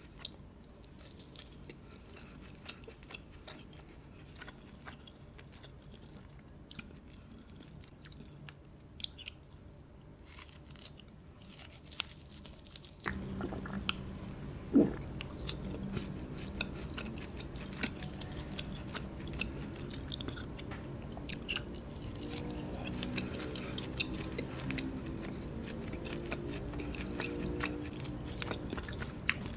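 Close-miked chewing of tough roast lamb leg, with small wet mouth clicks and smacks. About halfway through, a steady low background hum comes in and stays, and there is a swallow from a drink.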